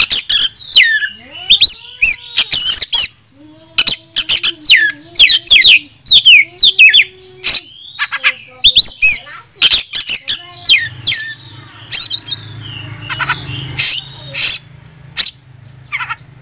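Oriental magpie-robin singing a loud, varied song of sharp whistles, rapid rising and falling notes and clicks, strung together without pause. It is a male in full song showing off its repertoire of learned phrases.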